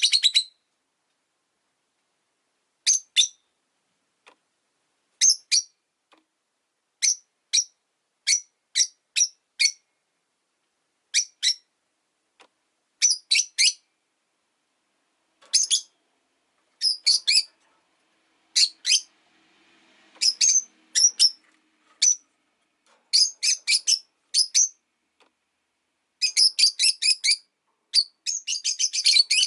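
Rosy-faced lovebirds chirping: short, sharp, high-pitched calls in quick runs of two to four, repeated every second or two, coming thick and fast near the end.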